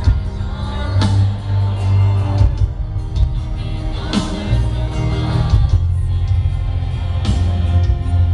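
Amplified live pop music with a heavy, sustained bass line, regular drum hits and a singing voice.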